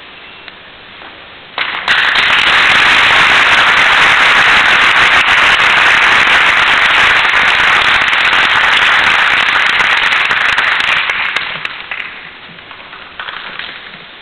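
Audience applauding. It starts suddenly about two seconds in, holds loud and steady for roughly nine seconds, then dies away.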